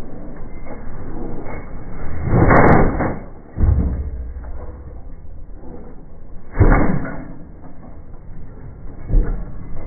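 Delmag F5 explosion rammer firing and jumping: a loud bang about two and a half seconds in as the combustion lifts the machine, a heavy low thud as it drops back to the ground a second later, then another bang about six and a half seconds in and a smaller one near nine seconds.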